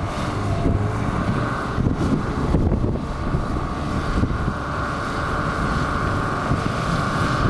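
Four-wheel drive's engine running steadily as it wades through deep river water, mixed with wind noise on the microphone.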